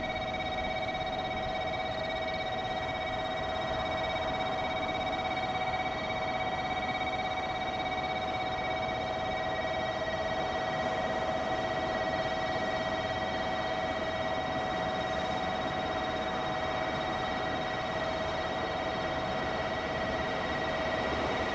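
Electronic train-approach warning alarm on the station platform: a steady tone of several held pitches, sounding continuously while a train comes toward the platform.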